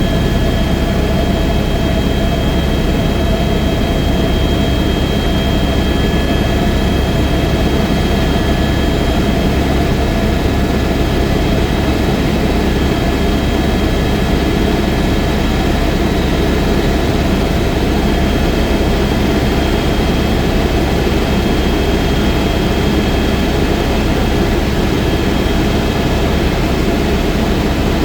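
Helicopter in flight: a steady, loud drone of engine and rotor, with a few constant high whining tones on top.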